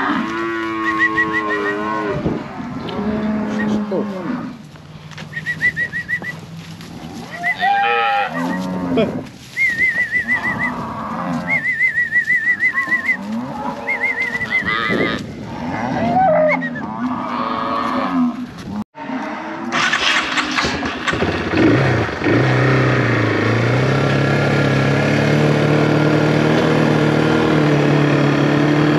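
Cattle mooing repeatedly as they stand bunched in a yard. Partway through, the sound cuts to a vehicle engine running steadily, heard from inside the cab.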